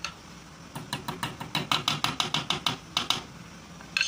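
Ball-peen hammer tapping metal lightly, about five quick ringing taps a second for around two seconds, then a single ringing metallic clink near the end.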